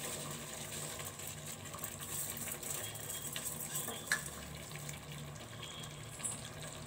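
Soaked rice being tipped from a plate into a pressure cooker of simmering chicken masala: a steady wet hiss, with a couple of light clicks.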